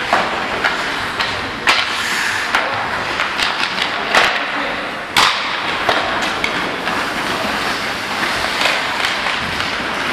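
Ice hockey play in an indoor rink: skate blades scraping and carving on the ice, with sharp clacks of sticks and puck several times, loudest about five seconds in.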